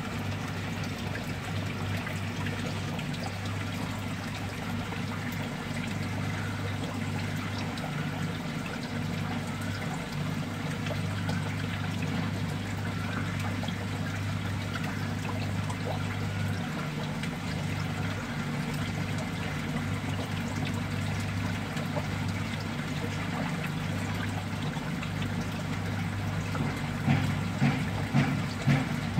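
Water trickling steadily in a crab fattening tank, with a steady low hum underneath and a few louder splashes near the end.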